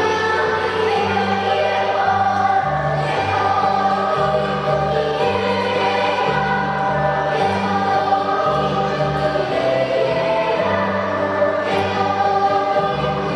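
Children's choir singing together with instrumental accompaniment, over a bass line that steps from note to note about every half second to a second.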